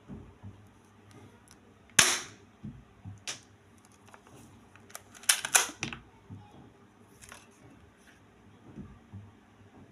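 Toy Beretta M9A3 pistol firing single sharp shots. The loudest comes about two seconds in, a lighter one follows a second later, and two more come in quick succession past the middle.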